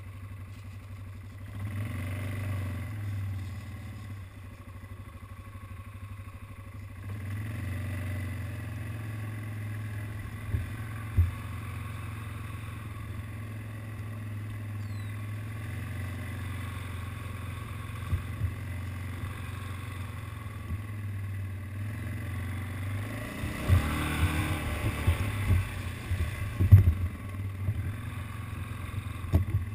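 ATV (quad bike) engine running at low speed, its note rising about two seconds in and again about seven seconds in. Scattered sharp knocks and rattles come through over it, most of them near the end.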